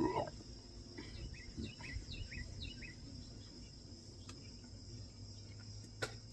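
Quiet background with a steady high-pitched hum, a run of short chirps about one to three seconds in, and a single sharp click about six seconds in.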